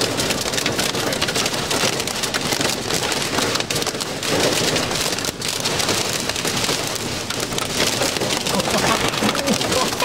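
Wind-driven heavy thunderstorm rain from a downburst pelting a car's roof and windows, heard from inside the car: a loud, dense patter with many sharp ticks of individual strikes.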